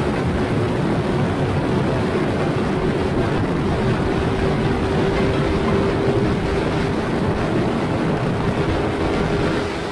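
Yamaha Mio scooter engine running at a steady cruising speed while riding, with wind buffeting the action-camera microphone.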